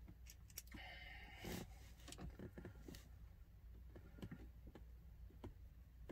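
Faint clicks and a light scrape of hand work on a blend door actuator under a truck's dashboard, a small screw and screwdriver being handled, over a low steady hum.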